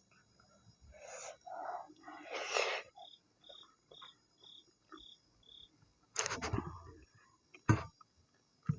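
Close-miked eating of maize dhido and nettle soup: wet smacking and chewing sounds, loudest about six seconds in, with a few sharp mouth clicks near the end. In the middle, six short high-pitched chirps sound about half a second apart.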